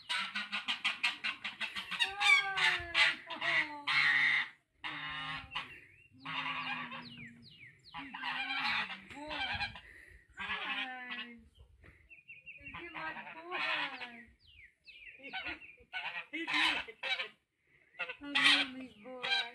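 Domestic goose honking again and again, in calls that bend up and down in pitch, with a few short pauses between them.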